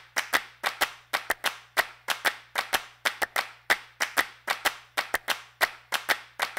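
Rhythmic hand clapping, about four sharp claps a second in an uneven pattern with some claps louder than others.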